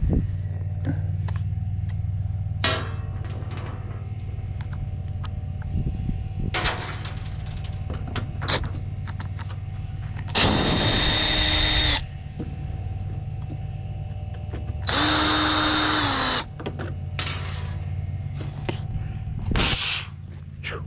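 Cordless drill-driver running twice, each run about a second and a half with a steady motor whine, driving screws out of a washing machine's sheet-metal cabinet. Short knocks and clatter of handling come between the runs, over a steady low hum.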